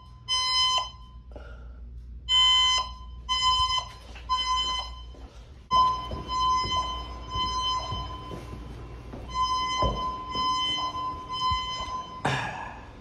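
Fire alarm evacuation speakers sounding the temporal-three alarm tone: three short beeps, a pause, then repeating. The beeps blur and echo from about six seconds in, in a stairwell, and there is a brief rustle near the end.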